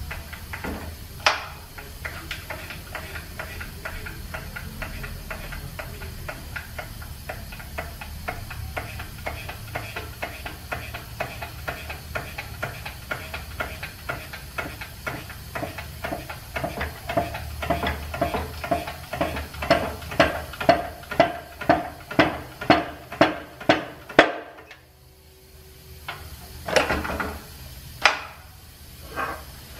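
Hand press being worked with a ratcheting handle to force a new aluminum bushing into the small end of a connecting rod: rapid metallic clicking, a few a second, that grows louder and stops abruptly about three quarters of the way through. A few louder single metal knocks follow near the end.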